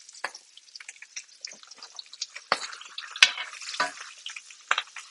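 Beef short ribs sizzling and crackling in melted butter in a cast iron pan, being basted on low heat, with a basting spoon scraping and clinking against the pan; one sharp clink about three seconds in.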